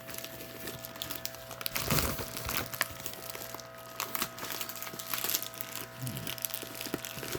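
Packaging being handled and opened: irregular crinkling and rustling, with a louder patch of crackling about two seconds in.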